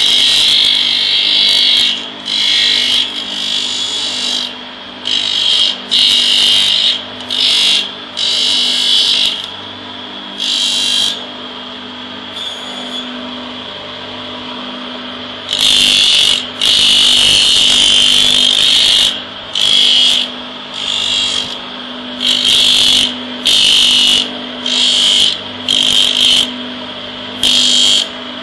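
Mother-of-pearl shell being ground on a motor-driven grinding wheel: a high, gritty grinding sound comes in repeated bursts of one to three seconds each time the shell is pressed to the wheel. The motor's steady hum runs underneath throughout.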